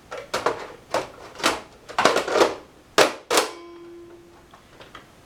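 Clicks and clatter of computer parts and cable connectors being handled against a desktop computer case, about eight sharp knocks in the first three and a half seconds, followed by a faint steady tone lasting about a second.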